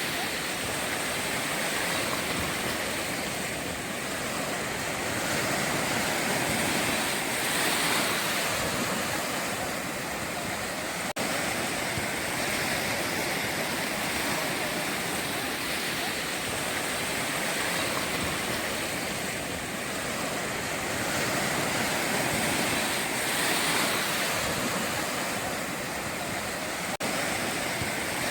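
Sea surf breaking and washing on a beach: a continuous rushing that swells and eases every few seconds, with two very brief drop-outs.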